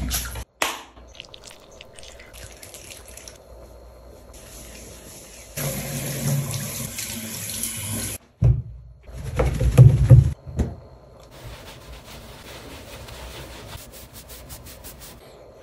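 Water from a handheld shower head spraying onto a small dog's wet coat during a bath, heard in several short cut-together clips, with a steady hiss of spray in the middle.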